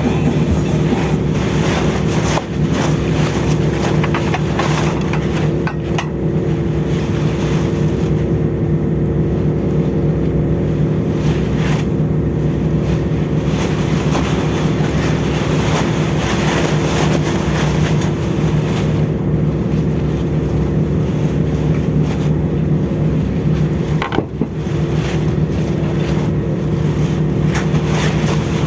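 Steady low drone of a ship's machinery, with wind rushing over the microphone.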